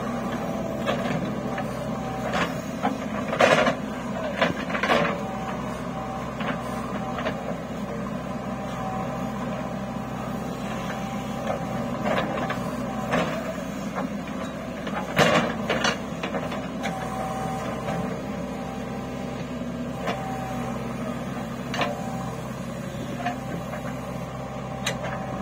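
JCB 3DX backhoe loader's diesel engine running steadily as the backhoe digs soil and swings to dump it into a tractor trolley, with several sharp clanks from the bucket and arm.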